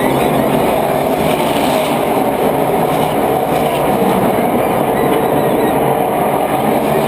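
Steady, loud engine noise of NASCAR stock cars running at speed around the track, with no single car passing or fading.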